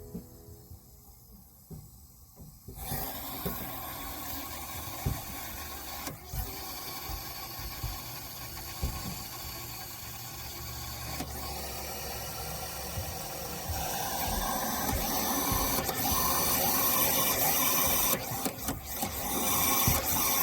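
Water system being pressurized: a steady pump hum with water rushing through the pipes. It starts about three seconds in and gets louder in the last third.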